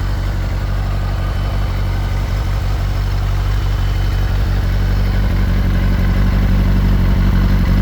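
Benelli TNT600i's 600 cc inline-four engine, with its stock exhaust, idling at a steady speed, growing slightly louder in the second half.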